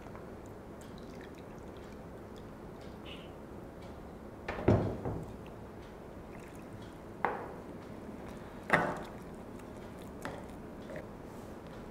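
Water poured from a measuring cup into a glass bowl of wheat-flour batter, with a few separate knocks of cup and spoon against the bowl, the loudest about halfway through. Near the end a spoon starts mixing the thick batter.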